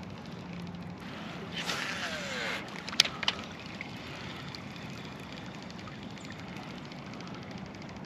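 A cast with a fishing rod and reel: line whirs off the reel for about a second with a falling pitch, then two sharp clicks follow about a second later, over a steady low background.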